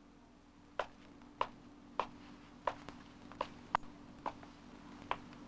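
Footsteps of hard-soled shoes on a hard floor: about nine sharp steps at an uneven walking pace, over a steady low hum.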